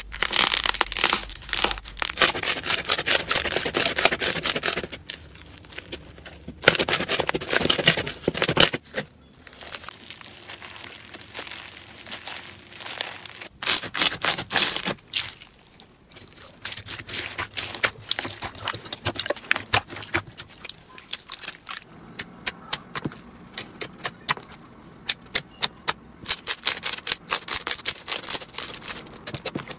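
Slime being squeezed and pressed by hand, including crunchy foam-bead slime. It makes dense crackling and crunching in bursts of a few seconds, and near the end a string of sharp separate pops.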